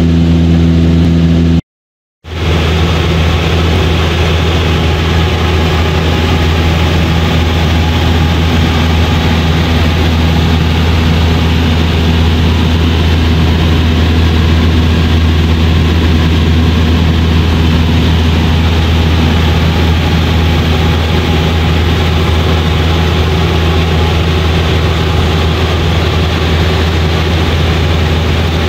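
Cessna 172's piston engine and propeller droning steadily in flight, heard from inside the cabin with a strong low hum and a rushing wash of noise. The sound cuts out for about half a second about two seconds in, then resumes unchanged.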